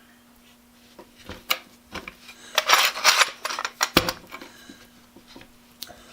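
Metal clicks and a scrape as the cam-action clamp on a router base is worked and the base handled, ending in a sharp knock about four seconds in.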